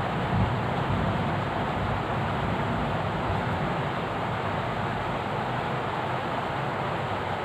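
Steady rushing noise, even and unbroken, with no distinct knocks or tones.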